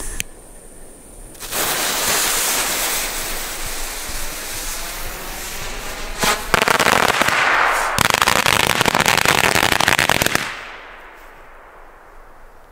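Firework going off: a loud rushing hiss for about five seconds, then dense, rapid crackling for about four seconds that stops suddenly.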